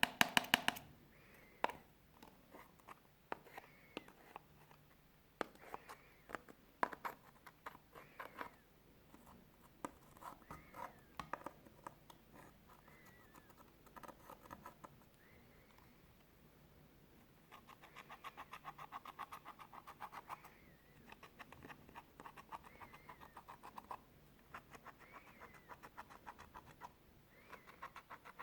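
Clear slime being squeezed and kneaded by hand, making runs of rapid small wet clicks and pops with short pauses between them.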